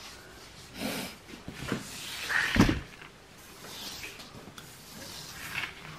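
Handling noises at a wire pet cage: rustling and a few light knocks, the loudest a dull thump about two and a half seconds in.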